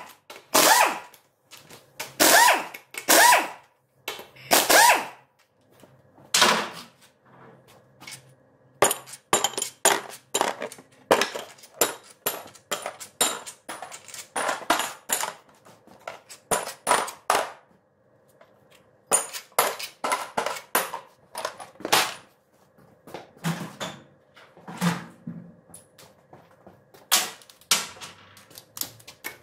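Metal knocks and clanks of tools and parts during gearbox disassembly: a long run of sharp knocks and clatters, with several short louder bursts in the first few seconds.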